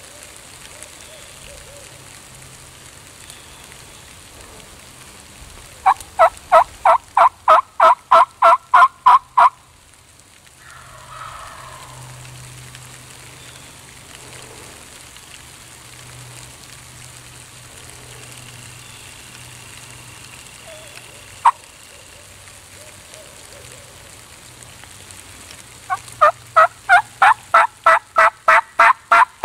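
Two runs of loud turkey yelps, each about a dozen evenly spaced notes at roughly four a second: one about six seconds in, the other near the end. A single sharp click comes between them.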